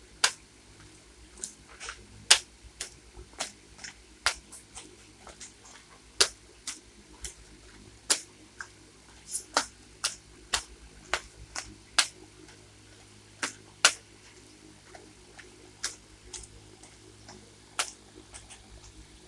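Rubber slide sandals slapping on concrete steps during repeated step-ups and step-downs: sharp slaps about one or two a second, uneven in spacing and loudness.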